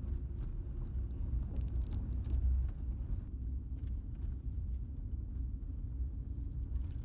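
Car driving along a dirt road: a steady low road rumble with scattered light clicks and ticks.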